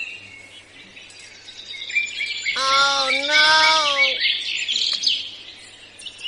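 Birds chirping with many short, high calls. About two and a half seconds in, a louder drawn-out voice-like tone sounds for about a second and a half, with a short break partway through.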